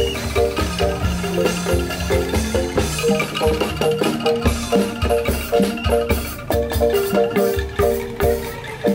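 Live Indonesian bamboo ensemble music: angklung and a wooden xylophone play a quick repeating tune over a steady beat on hand drums.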